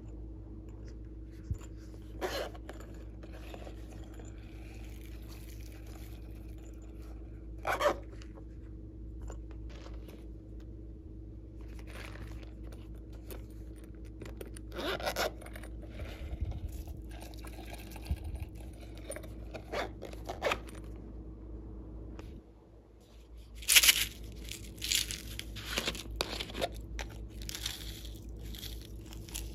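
Glossy slime being worked by hand, giving scattered sticky crackles and pops, with a cluster of louder crackles near the end, over a steady low hum.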